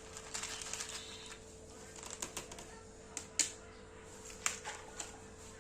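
A cat crunching dry cat food (Whiskas), giving irregular crisp clicks. There are quick clusters early on and around two seconds in, then a few single sharper crunches, over a faint steady hum.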